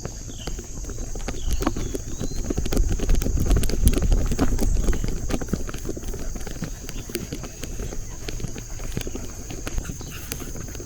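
Irregular footsteps on the ground during an outdoor walk, a rapid uneven patter of clicks over a low rumble, loudest around the middle.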